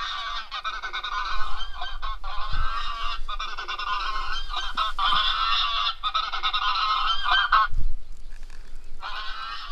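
A dense chorus of goose honking, many calls overlapping without pause, breaking off for about a second near the end and then resuming.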